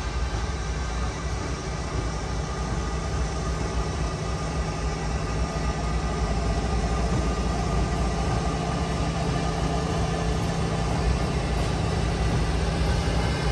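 CSX diesel-electric freight locomotives running steadily with a deep engine drone, growing gradually louder.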